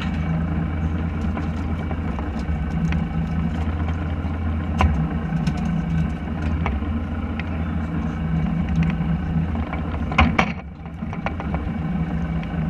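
Fishing boat's engine idling with a steady low hum, with scattered light clicks and knocks from the deck and a sharper knock about ten seconds in.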